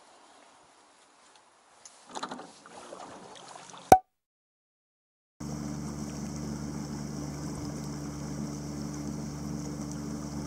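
A sharp click about four seconds in, then, after a short gap, a small fishing boat's motor running with a steady hum while water washes along the hull.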